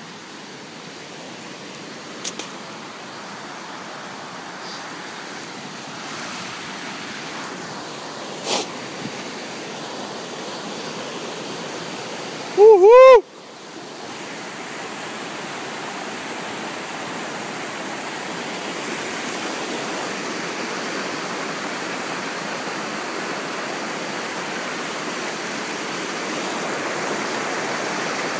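Rushing river water, a steady noise that grows gradually louder. About halfway through, a person shouts a loud "woo-hoo!" with a rising-and-falling pitch, and there are a few faint clicks from the phone being handled.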